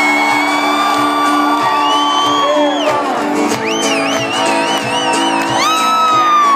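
Live acoustic band music: steady strummed guitar chords with a beat, under high held vocal notes that waver and slide down near the end.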